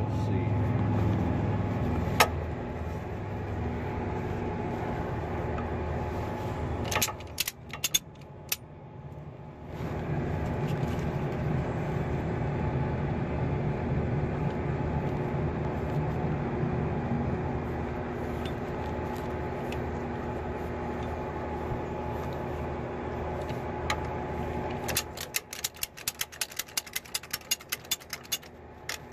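A truck engine idling steadily. Near the end comes a rapid run of light metallic clicks and rattles.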